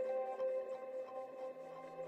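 Slow ambient background music of layered, long-held tones, with a new lower note coming in near the end.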